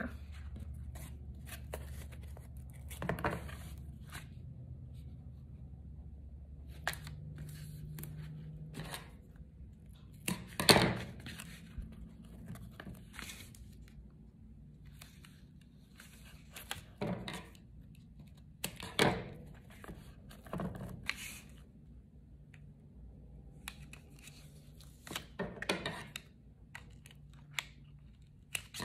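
Pieces of foam tape being cut and their backing paper peeled off, in short scattered rasps with pauses between; the loudest comes about eleven seconds in.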